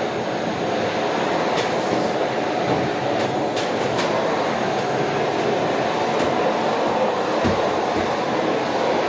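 Household vacuum cleaner running steadily, a constant motor and airflow noise, with a few light clicks and two dull knocks near the end.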